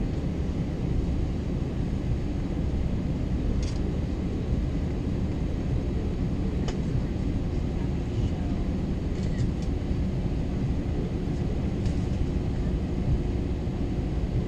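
Steady low rumble inside an Airbus A321 cabin as the jet taxis on the ground, its engines at low power, with a faint steady hum and a few light clicks.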